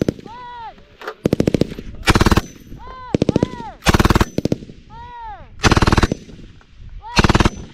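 A belt-fed 7.62 mm FN MAG-pattern general-purpose machine gun fires about six short bursts of several rounds each. Faint rising-and-falling whines sound in the gaps between bursts.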